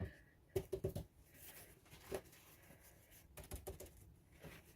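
Faint handling sounds from a thin plastic egg-carton lid used as a tray and a paper towel being wetted in it: a few soft clicks and taps, in two quick clusters about a second in and around three and a half seconds in.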